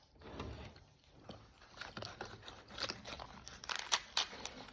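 Small plastic wrapper crinkling and rustling as a miniature toy grocery item is unwrapped by hand, in irregular crackles and light clicks that get busier after about two seconds.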